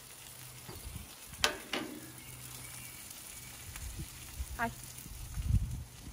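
Sausages and burgers sizzling on a gas barbecue grill, a steady hiss. Two sharp clicks come about a second and a half in, and a low thump near the end.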